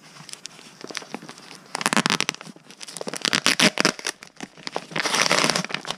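A clear plastic document pouch being peeled and crumpled off a padded paper mailer: crinkling and crackling in bursts, busiest about two seconds in, again a second later and near the end.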